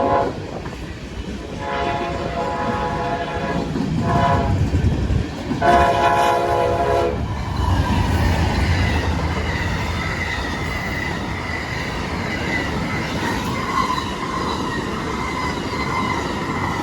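Amtrak passenger train sounding its horn for the grade crossing: two long blasts, a short one and a final long one in the first seven seconds. It then rolls steadily through the crossing with clickety-clack wheel noise.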